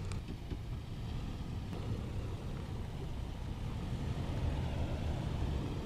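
Toyota Tacoma pickup's engine idling as the truck backs up slowly, a steady low rumble.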